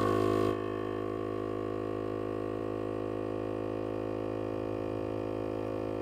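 Superflow MV-50 12-volt portable air compressor running steadily as it inflates a plugged trailer tire: an even, buzzing drone. It is louder and hissier for the first half second, then settles.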